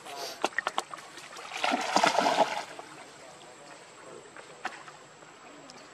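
Water splashing and lapping as a baby macaque swims through a pool, with a louder burst of splashing about two seconds in.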